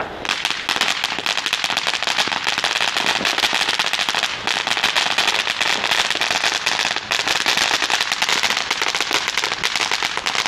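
Ground firework fountain crackling: a dense, rapid stream of small sharp pops that starts suddenly and keeps going, with two brief lulls.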